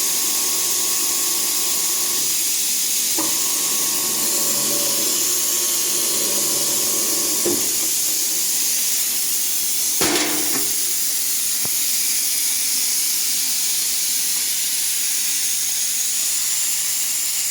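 ELUMATEC AF 221 mullion end-milling machine running with a steady high hiss. A pitched cutting tone comes in twice, stopping about two seconds in and again about seven and a half seconds in. A short sharp noise sounds about ten seconds in.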